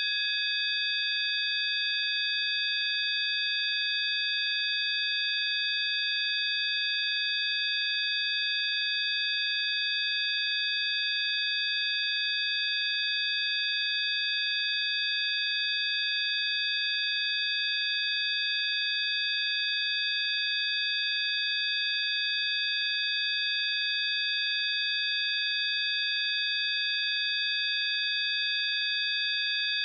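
Several steady, high-pitched electronic sine tones sound together as one unchanging chord, a synthesized 'healing frequency' tone track.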